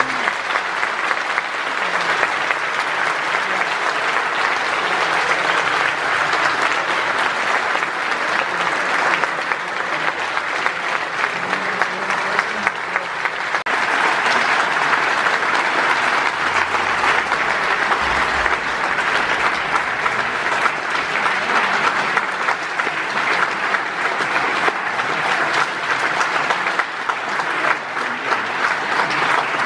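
A large seated audience applauding, a steady, dense clapping that holds its level throughout.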